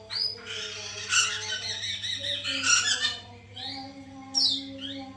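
Poksay mantel (a laughingthrush) singing: a dense burst of harsh, chattering calls for the first three seconds, then several short rising whistled notes. A steady low hum runs underneath.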